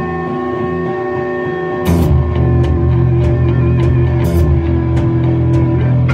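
Rock band playing live in a rehearsal room. Electric guitars hold sustained, wavering notes at first; about two seconds in, the full band comes in louder, with bass, drums and cymbal crashes.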